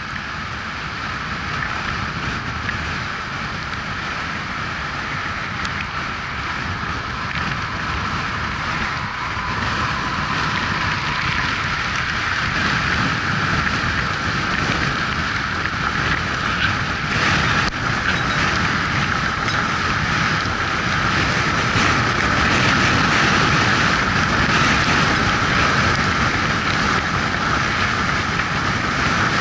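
Steady wind and road noise from a camera on a moving road bicycle: wind rushing over the microphone with tyre noise on the wet road, somewhat louder in the second half.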